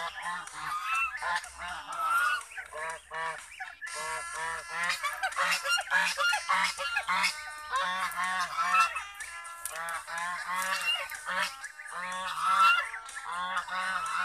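A flock of domestic ducks quacking without let-up, many short calls in quick succession and overlapping.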